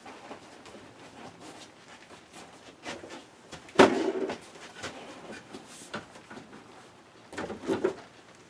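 Knocks and clatter from handling car-seat parts during reassembly: a sharp clack about four seconds in with a short rattle after it, and another cluster of knocks near the end.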